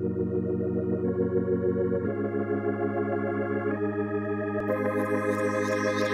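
Background music: held organ chords that change every second or so, with a high hissing layer coming in about three-quarters of the way through.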